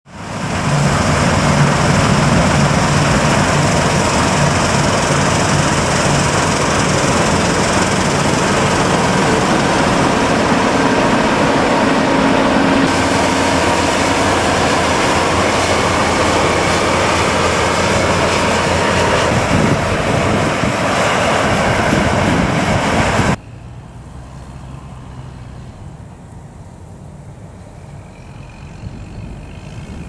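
New Holland CR8.80 combine harvester running close by while harvesting grain: its engine and threshing machinery with the rear straw chopper spreading chaff, a loud, steady, dense machine noise. About 23 seconds in it cuts suddenly to a much quieter, more distant machinery hum.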